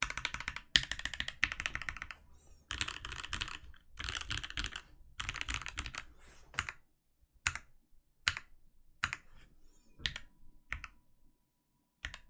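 Switch Couture Alice mechanical keyboard being typed on: JWK Pinokos switches lubed with 205g0, in a stacked acrylic mount with an acrylic plate, under PBT keycaps. Fast bursts of typing for about six seconds, then single keystrokes roughly one a second.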